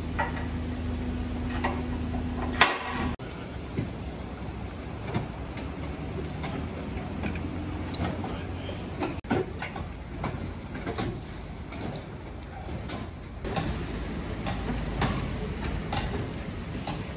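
A small van's engine running steadily, cut off by a loud clack about three seconds in; then a wooden yatai food-stall cart towed behind the van, its wheels and frame rattling and clattering irregularly over wet road.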